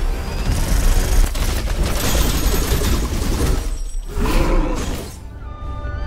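Cinematic soundtrack of a rendered sci-fi battle: dense explosions and gunfire over music, breaking off briefly about four seconds in, then quieter held musical tones near the end.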